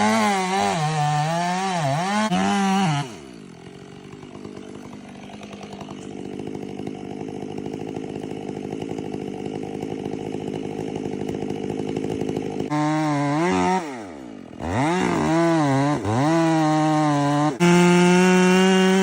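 Long-bar chainsaw revving up and down. About three seconds in it drops to a quieter, lower drone that slowly builds for about ten seconds, then it revs up and down again and holds steady at high revs near the end.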